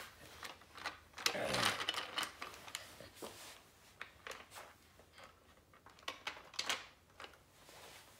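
Light plastic clicks and knocks as a Lionel Little Lines toy locomotive is handled and set back on its plastic track. A short voice sound comes about a second and a half in.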